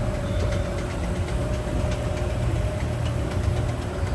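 Steady low rumble with a constant hum and light scattered clicks.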